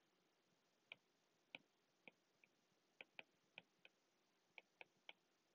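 Faint stylus tip clicking on a tablet screen as handwriting is written, about a dozen short, irregular taps.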